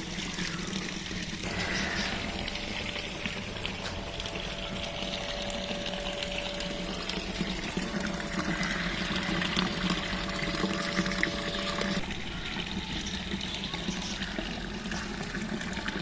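Water pouring steadily from a pump-fed waterfall into a cement koi pond. The sound thins and changes about twelve seconds in.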